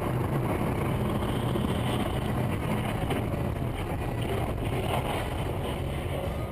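Steady engine and road noise of a moving car, heard from inside the cabin, with no distinct impact.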